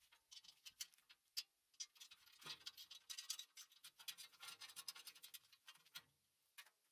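Faint scratching and scattered small clicks of hands and a work glove handling the bolts and washers on a garden shredder's steel hopper flange, busiest in the middle.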